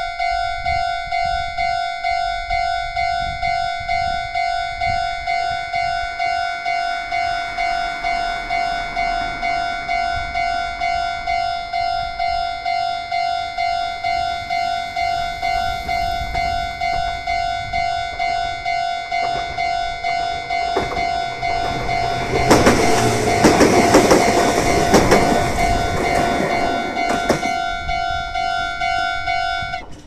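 Japanese level-crossing alarm sounding a regular pulsing tone throughout, while a Meitetsu 6800-series electric train passes over the crossing about two-thirds of the way through, loud wheel-and-rail noise for several seconds. The alarm stops right at the end as the train clears.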